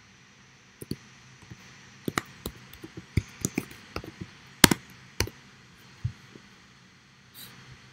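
Typing on a computer keyboard: two taps about a second in, then an irregular run of keystrokes for about four seconds, the loudest near the middle, and a softer knock near the end.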